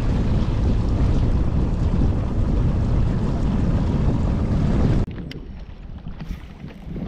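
Strong wind buffeting the microphone over choppy lake water, a loud, dull rumble with no engine tone in it. About five seconds in it cuts off suddenly to a much quieter scene of light water and a few faint clicks.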